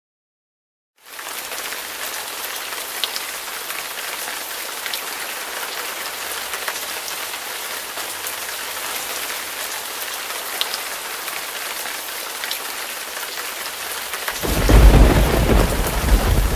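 Steady rain starting about a second in, then a loud thunderclap near the end.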